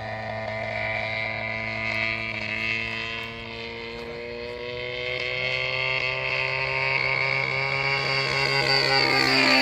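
Two-stroke gasoline engine of a scale RC model airplane running in flight. Its drone slowly rises in pitch and grows louder as the plane approaches, then drops in pitch near the end as it passes by.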